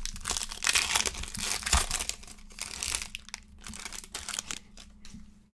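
Foil wrapper of a trading-card pack being torn open and crinkled by hand. The crackling is dense and irregular in the first three seconds and thins out toward the end.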